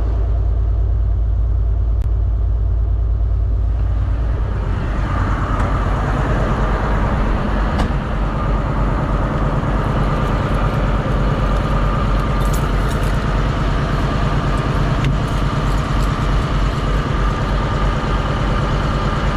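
Semi truck's diesel engine running with a steady low drone. About five seconds in, more road and engine noise builds up along with a faint steady whine.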